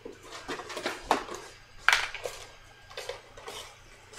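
Kitchen cabinet and glass jar being handled: a string of short, irregular knocks and clinks, the sharpest a little under two seconds in.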